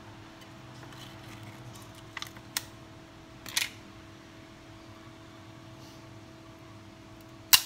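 Light clicks and taps from a yogurt cup being handled and tipped over a bowl, with a sharper knock near the end, over a steady background hum.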